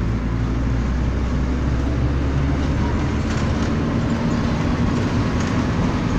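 Vehicle engine running steadily with continuous road and wind rumble, heard from on board while climbing a road.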